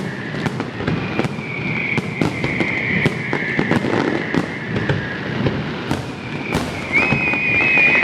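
Fireworks display: a fast, irregular string of bangs and crackling pops, with a hiss that comes and goes and a thin whistle near the end.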